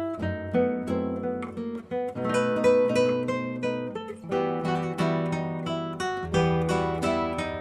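Background music: an acoustic guitar picking and strumming chords, with several notes struck each second.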